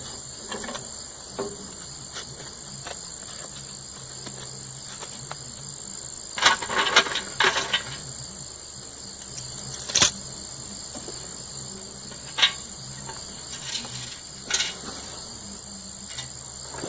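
Metal clinks and clanks of tractor lift-arm parts and hardware being handled and fitted: a clattering run of clinks about six and a half seconds in, one sharp clank around ten seconds, and a couple of lone clicks later, over a steady high-pitched background tone.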